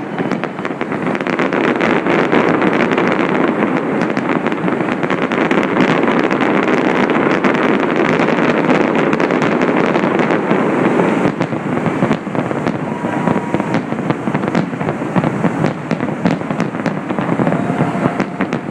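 Dense, continuous fireworks barrage: overlapping bangs and rapid crackling, thinning slightly about two-thirds of the way through.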